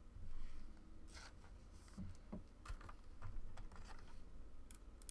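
Faint handling noises of trading cards at a table: a couple of short rustling swishes about a second in, then a scatter of light clicks and taps.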